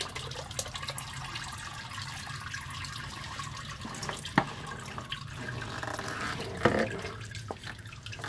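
Transmission oil draining from the loosened filter housing of a Volvo I-Shift gearbox, running down in thin streams into a drain pan with a steady trickle and splatter. Two sharp clicks come partway through.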